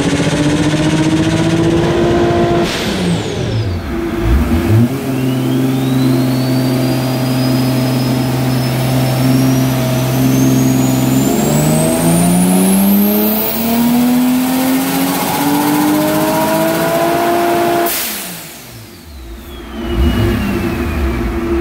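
Turbocharged Toyota Supra 2JZ straight-six, run on a chassis dyno through a catted exhaust with a wastegate screamer pipe. Engine speed falls briefly about three seconds in, holds steady, then climbs hard under boost with a rising turbo whistle. About eighteen seconds in the throttle shuts with a short rush of noise, and the whine falls away.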